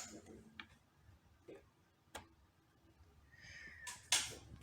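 Faint, scattered clicks and taps, about half a dozen over four seconds, from hands working a laptop's controls.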